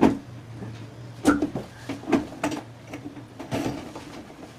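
Scattered clicks and knocks of hard plastic parts as a ball-cock float valve is pushed into the side hole of a plastic flush cistern and fitted in place.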